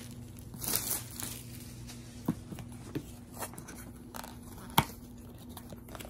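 A cardboard kit box and its wrapping being opened by hand: rustling, crinkling and tearing of packaging with scattered sharp clicks and taps, the loudest click about three-quarters of the way through. A faint steady low hum runs underneath.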